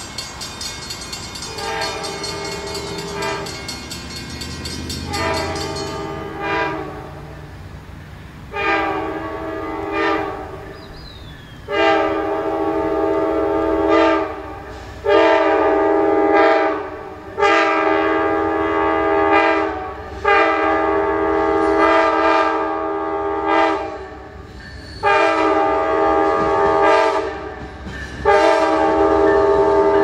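Amtrak P42DC diesel locomotive's air horn sounding a long series of chord blasts, some short and some long, growing louder as the train approaches. Under the horn runs a low rumble of engine and wheels that swells near the end as the locomotive arrives.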